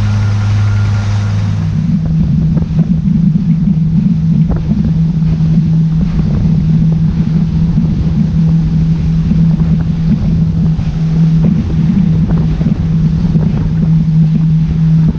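Outboard motor of a Bar Crusher 490C boat running at speed, with wind buffeting the microphone. The steady engine note jumps higher about two seconds in, then holds.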